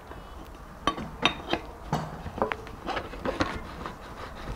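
Metal parts of a Kawasaki KLE500 front wheel assembly knocking and clinking against the forks as the wheel and spacer are worked into place: a string of irregular short knocks, some ringing briefly.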